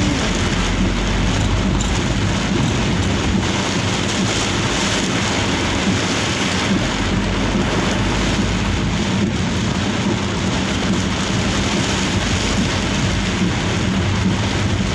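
Heavy rain pelting the windshield and roof of a Daihatsu Gran Max van, heard from inside the cabin as a dense, even hiss, with the low steady hum of the engine underneath while driving.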